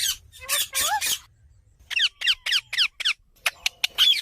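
Hand-fed baby parrots squeaking with short, high-pitched begging calls. After a brief pause there is a quick run of about five squeaks that fall in pitch, followed by a few sharper chirps.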